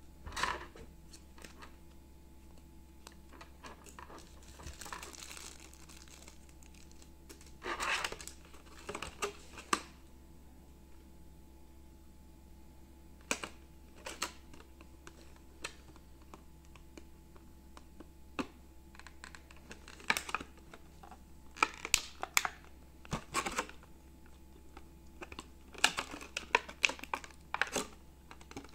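Packaging being handled: irregular clicks, taps and crinkles from a plastic tray and wrappers as neckband earphones are taken out, over a steady low hum.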